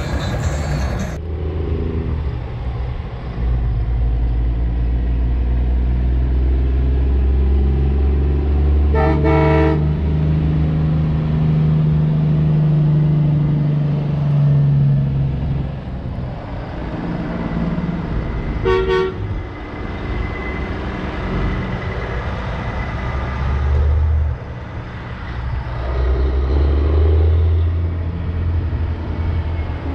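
Semi-truck diesel engines running as big rigs drive past, with a horn blast about nine seconds in and a shorter one near nineteen seconds. Near the end an engine swells under hard acceleration as a truck pulls away blowing black smoke.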